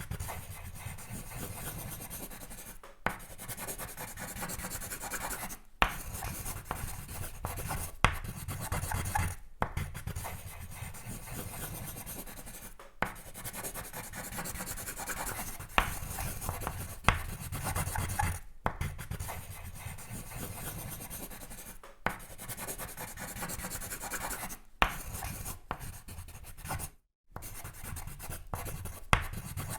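Sketching on paper: a drawing tool scratching and rubbing across the sheet in continuous strokes. There are short pauses every few seconds and a few sharp taps.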